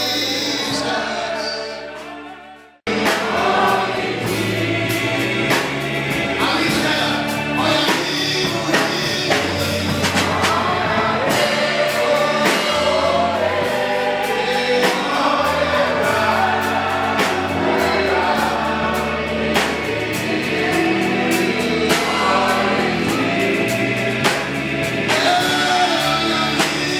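Live gospel worship music: a congregation singing together with a male worship leader on a microphone, backed by a band with drums. About two seconds in the music fades and drops out for a moment, then comes back in full.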